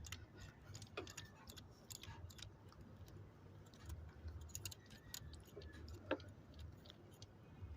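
Faint, scattered light metallic clicks and ticks from hand work under the hood: a loose fuel-rail bolt being unscrewed with the fingers. The sharpest click comes about six seconds in, over a low steady hum.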